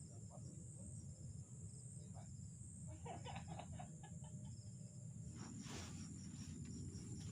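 Forest ambience: insects trilling steadily at a high pitch over a low, steady rush, with a short cluster of animal calls about three seconds in.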